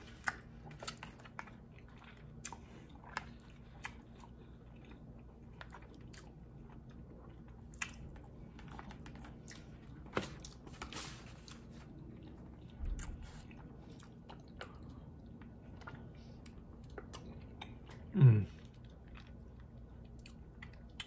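Close-up chewing and biting on steamed dim sum chicken feet, with scattered small wet clicks and crunches as teeth work the meat off the little bones and cartilage. A short voiced sound from the eater comes near the end.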